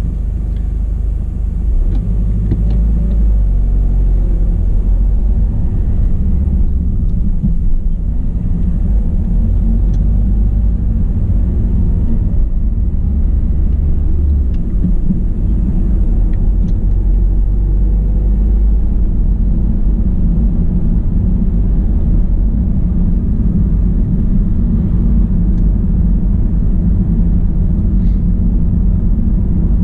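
Steady low rumble of a car's engine and tyres heard inside the cabin as the car pulls away and drives on, a little louder once it gets moving.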